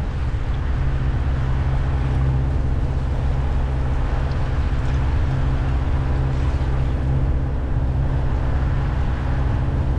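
Sailing yacht's inboard diesel engine running steadily while motoring, a low even drone with a hiss of wind and water over it.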